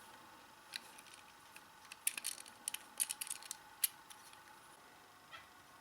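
Faint scattered clicks and light rattles from a wall socket's metal mounting claws and plastic body being handled while a rubber band is fitted over the claws.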